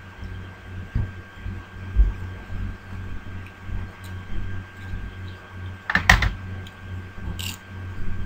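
Computer keyboard keys clicking, with a quick cluster of sharp clicks about six seconds in and a single click a little later, over soft low thumps and a faint steady electrical hum.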